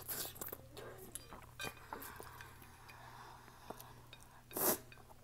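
Chopsticks clicking and scraping against a glass plate while the last noodles are scooped up, with slurping and chewing in between. One louder, short rush of noise comes near the end.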